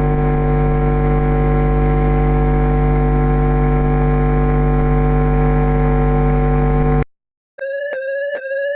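Emergency alert tones: a loud, steady electronic buzzing tone that cuts off suddenly about seven seconds in, then after a brief silence a series of short, repeated alert beeps, about two a second.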